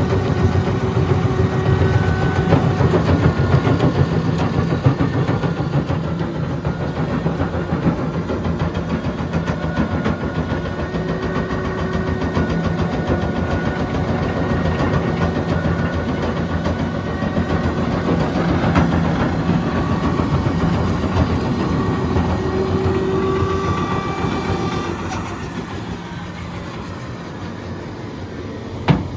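Hitachi Zaxis 330 excavator's diesel engine and hydraulics working under load as its crusher bucket churns and breaks rock: a continuous rattling clatter with whining tones over it. It eases off about 25 seconds in, and there is a single sharp knock near the end.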